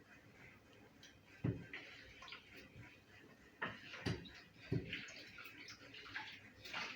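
Seasoned raw potato pieces being mixed in a cooking pot: a faint, soft rustling with four light knocks against the pot.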